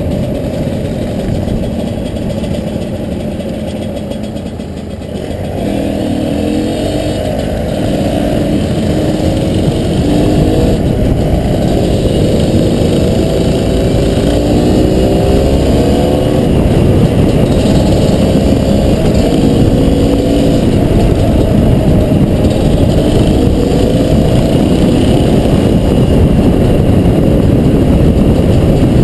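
Honda CRM250RM's two-stroke single-cylinder engine running under way on a dirt track, the revs rising and falling again and again with the throttle. It is softer for a moment about four to five seconds in, then louder from about eight seconds on.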